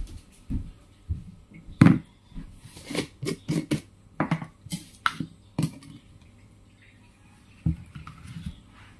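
A string of sharp knocks and clicks as a plastic jar of pickled chillies, a plastic plate and metal tongs are handled on a tabletop. The loudest knock comes about two seconds in, and a few softer clicks follow near the end.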